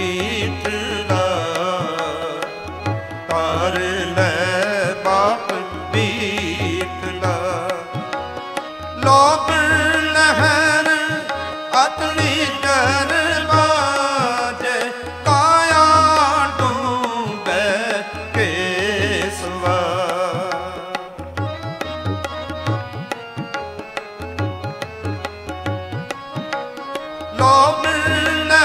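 Live Sikh Gurbani kirtan: a wavering sung melody over a steady tabla rhythm.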